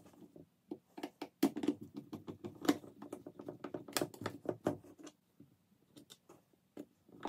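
Hand screwdriver driving screws into a cordless drill's plastic housing, with the tool and plastic being handled: a run of irregular small clicks, ticks and scrapes that thins out after about five seconds.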